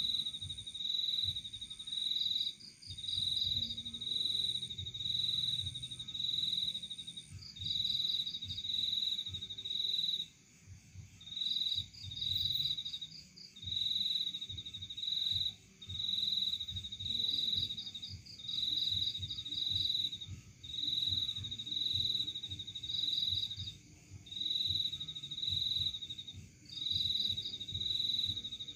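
Crickets chirping: a high-pitched trill repeated in phrases of a second or two, with short breaks between them.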